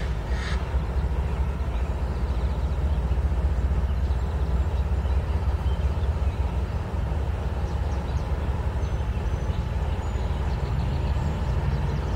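Norfolk Southern diesel-electric locomotives pulling a double-stack intermodal train out slowly, with a steady low engine rumble.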